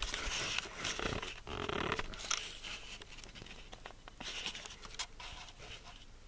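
Clear plastic sheeting crinkling and rustling against the camera as it is handled, in irregular crackly bursts during the first two seconds and again about four seconds in, then dying down.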